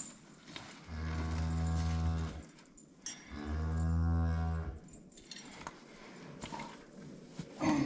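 Cow mooing twice: two long, low, steady moos about a second apart.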